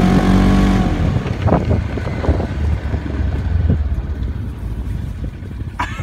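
Engine of the vehicle towing the sled, running with a low rumble and a pitch that sags slightly in the first second as it slows, with a few knocks and jolts.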